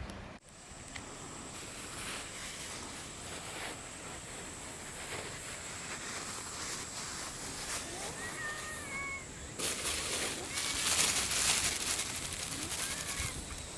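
A cat meowing faintly a few times, short calls about eight seconds in and again near the end. A louder rushing noise starts about ten seconds in and runs to near the end.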